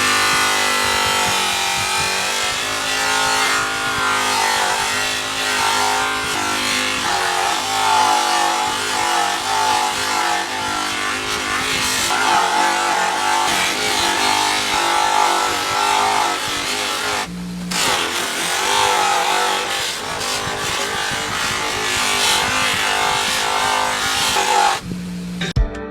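Background music playing continuously, with a brief break about two-thirds of the way through.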